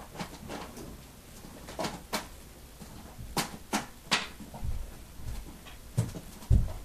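Handling noise: scattered clicks and light knocks of cables and plastic connectors being handled and plugged in, with a few heavier low thumps in the second half.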